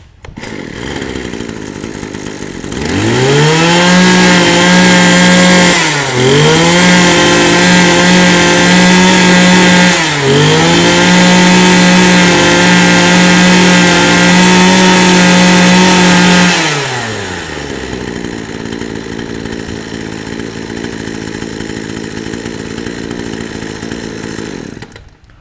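Kawasaki TJ27 two-stroke brush cutter engine idling, then revved to full throttle for about fourteen seconds with two brief dips in speed, dropping back to a steady idle and stopping near the end.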